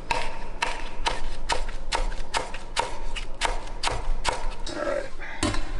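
Chef's knife slicing through a rolled stack of mint leaves and knocking on a wooden cutting board: a steady run of crisp taps, about two and a half a second, that pauses about four and a half seconds in, with one more tap near the end.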